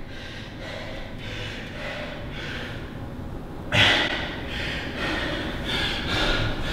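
A man panting hard, out of breath from an all-out interval workout, with quick breaths about twice a second. There is a louder gasp a little past halfway.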